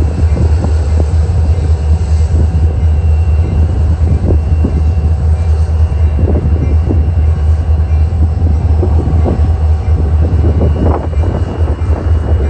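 Diesel freight locomotives running as the train approaches, a loud, deep and steady rumble.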